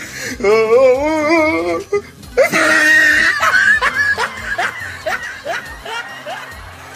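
A long wavering, warbling pitched sound, then a loud burst of laughter that dies away in short breaths over several seconds.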